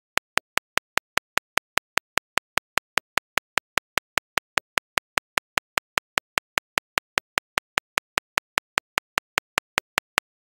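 A rapid, perfectly even series of sharp clicks, about five a second, which stops shortly before the end.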